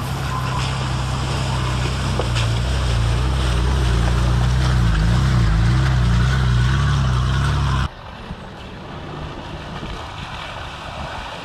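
A 4WD's engine running under load as it drives through deep muddy ruts, its pitch wavering up and down with the throttle. It cuts off abruptly about eight seconds in, giving way to a quieter mix of outdoor noise and a fainter engine.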